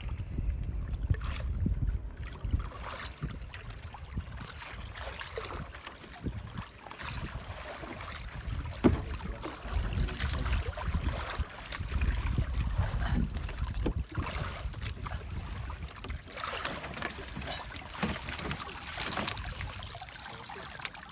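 Water splashing and streaming as a metal-framed mesh fish trap is hauled up out of the sea beside the boat. Wind rumbles on the microphone throughout, with occasional knocks, the loudest about nine seconds in.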